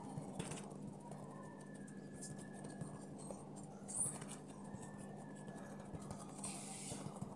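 Fingers pressing and patting soft bread dough in a round metal pan: faint soft pats and rubbing, with a couple of brief scuffs. A low steady hum runs underneath.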